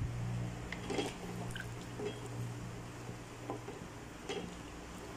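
Wooden spatula stirring thin coconut-milk curry in a wok: soft sloshes and light scrapes against the pan a few times, over a steady low hum.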